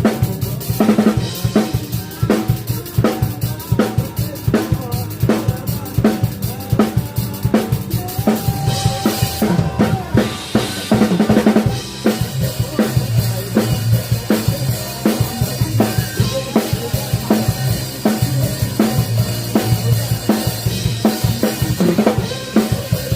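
Rock drum kit played as a steady beat, kick drum and snare driving it with frequent hits, heard close from beside the kit. A held note sounds briefly about midway through.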